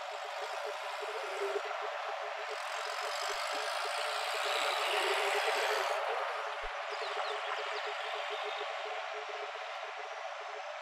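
A motor vehicle passing by on the street, its noise swelling for a few seconds and fading, over steady outdoor noise.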